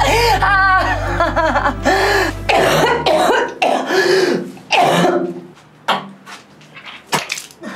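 A person coughing in rough, noisy bursts, after wavering vocal sounds, over a low music drone that stops about three seconds in.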